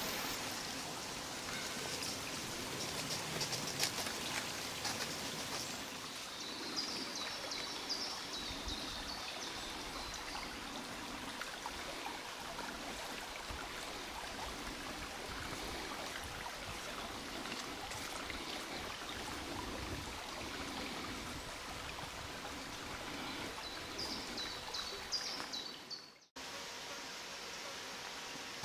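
Small creek running steadily, with a few short, high bird chirps about six seconds in and again near the end. The sound cuts out for a moment just before the end, and a steady hiss follows.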